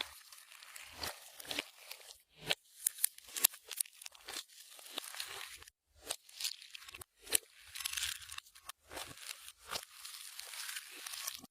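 Clear slime being worked and squished by hand, making sticky clicks and small pops that come irregularly and close together.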